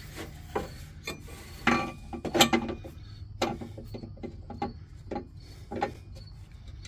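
Irregular metal clicks, knocks and scrapes, roughly two a second, as a steel light-bar mounting bracket is slid onto a bolt and a nut is fitted to hold it.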